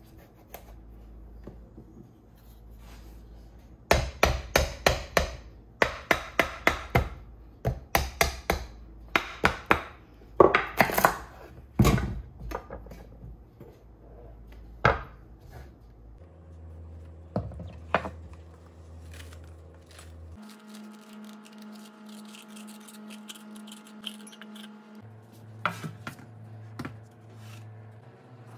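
Kitchen knife cutting through a raw spaghetti squash on a cutting board: a run of sharp knocks, roughly two a second, for several seconds, then scattered clicks and knocks.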